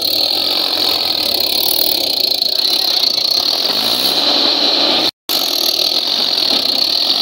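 Diesel engines working hard under load: a Mahindra 475 DI tractor straining to haul a loaded sand trolley up out of deep sand, with a JCB backhoe loader running alongside as it pushes. The sound cuts out completely for a moment about five seconds in.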